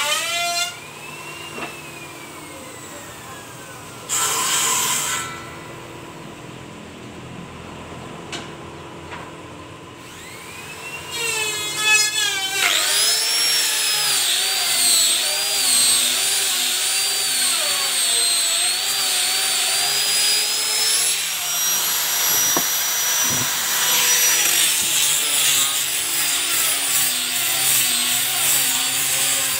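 Maktec hand grinder sanding teak wood with 180-grit paper. Its motor winds down at the start, is mostly quiet apart from a brief burst of noise, then spins up about twelve seconds in and runs loud with a high, wavering whine as it works the wood.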